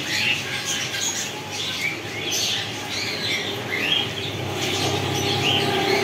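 Cage birds chirping, many short, high chirps overlapping irregularly, over a low steady hum.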